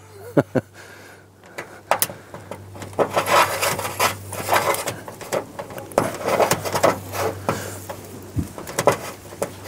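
Irregular scraping and rubbing, with small clicks, as the end of a gray 14-gauge direct burial wire is worked by hand to strip its insulation.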